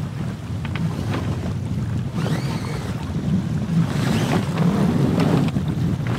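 Wind buffeting the microphone on a sailboat's deck, a steady low rumble. Over it come short clicks and rustling as the mainsail is pulled down the mast by hand and its cloth gathered.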